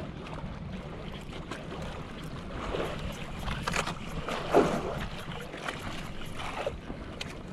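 Steady low wind rumble and water washing around a small outrigger fishing boat at sea, with scattered faint knocks.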